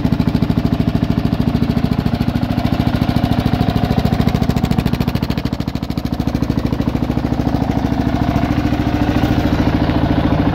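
Kawasaki KLR650's single-cylinder four-stroke engine idling steadily with an even train of firing pulses, still warming up after a cold start.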